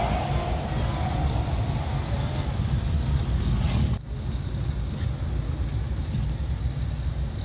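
1994 Suzuki Carry 1.0 van on the move, heard from inside the cabin: a steady low engine and road rumble, broken by a sudden short dip about four seconds in.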